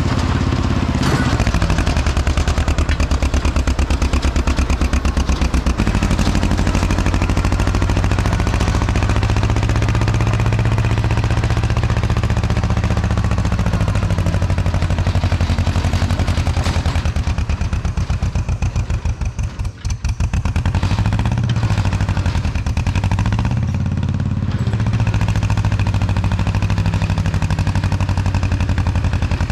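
Engine of heavy earthmoving equipment running steadily under load with some clatter. It dips briefly about twenty seconds in, then rises and falls in pitch.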